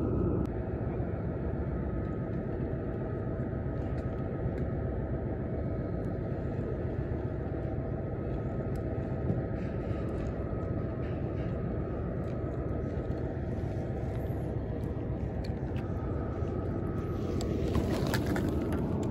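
Steady low rumble of distant engines or machinery with a faint constant whine above it, unchanging throughout; a few clicks and rustles near the end.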